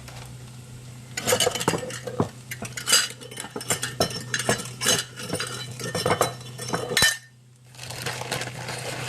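Kitchen utensils, a measuring cup and spoon, clinking, knocking and scraping against a bowl as dry ingredients are measured in, with a brief pause about seven seconds in.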